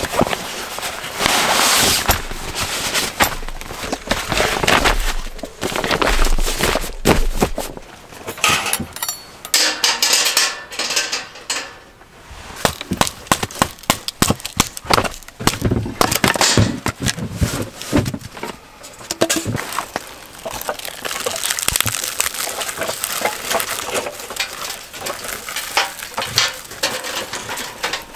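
Camp handling sounds: rustling of a fabric bag being unpacked, then many sharp wooden knocks and cracks as kindling is prepared, and crackly crunching of dry twigs laid into a metal fire grill near the end.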